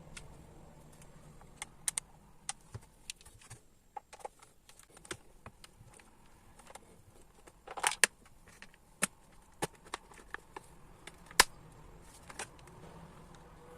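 Scattered sharp clicks and knocks of a clothes iron and its parts being handled during repair, with a short rattling cluster about eight seconds in and the loudest single knock a few seconds later.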